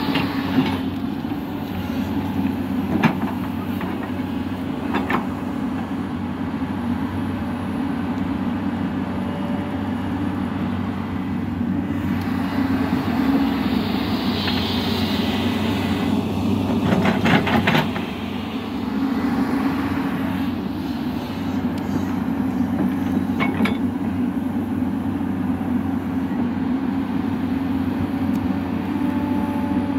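Hyundai Robex 215 L crawler excavator's diesel engine running steadily under digging load, with a few sharp metallic clanks from the working bucket, a cluster of them about seventeen seconds in.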